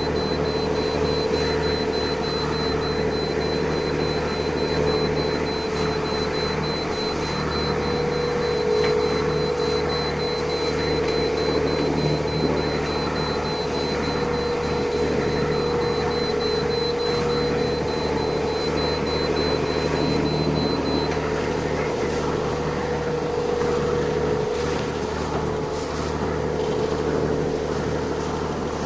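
A ship's engine running steadily under way, a low even drone with a constant rush of noise over it. A thin high-pitched whine runs alongside and stops about two-thirds of the way through.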